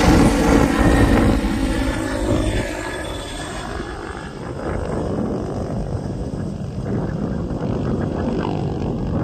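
A helicopter flying overhead, with a steady rotor-and-turbine drone that is strongest for the first three seconds or so and then fades. Wind rumbles on the microphone throughout.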